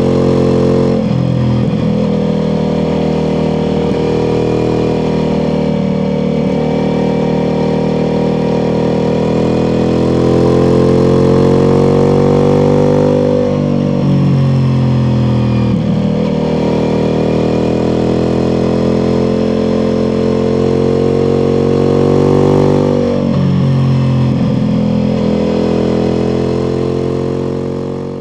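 Ducati Multistrada V4 Pikes Peak's V4 engine through its Akrapovic exhaust, pulling under load while riding: the engine note climbs slowly for about twelve seconds, falls back about halfway through, climbs again and falls back once more near the end.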